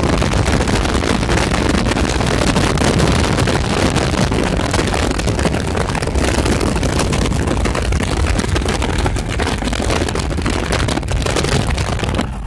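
Loud wind buffeting the microphone of a phone held out of a moving car, over the car's low road rumble. It drops away abruptly near the end.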